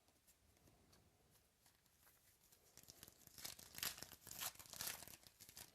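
Trading-card packaging being torn open: a dense run of crinkling and tearing of the plastic wrapper, starting about three seconds in and loudest near the middle of that stretch.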